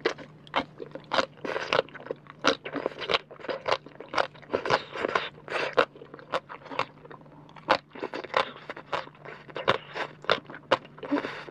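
Close-miked crunchy chewing of crisp rau tiến vua (celtuce stem) salad: an irregular run of sharp crunches, a couple or more each second.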